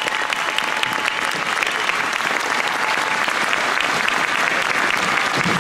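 A large crowd applauding steadily, many hands clapping at once.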